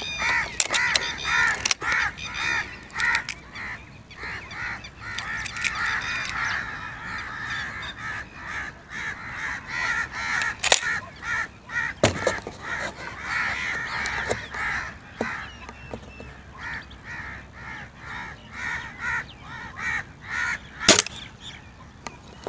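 Birds calling over and over throughout. Clicks from the spring-piston air rifle as its barrel is broken to cock it near the start, and a single sharp crack about a second before the end, the loudest sound, which is the rifle's shot.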